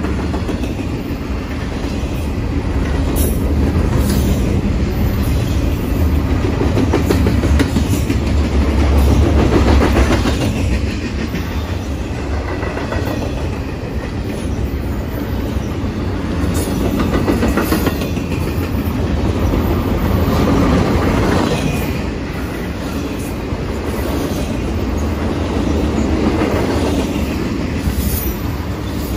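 Double-stack intermodal freight train's well cars rolling past: a steady low rumble with wheels clacking over rail joints, swelling and easing as the cars go by.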